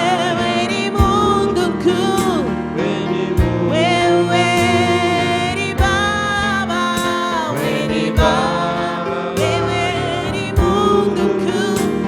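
Gospel worship song: a voice singing over a band with bass, and a heavy beat about every two and a half seconds.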